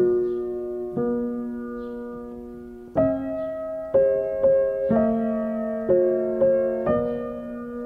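Slow, gentle piano music: notes and chords struck roughly once a second, each ringing and fading. One chord is held for about two seconds before the notes come quicker.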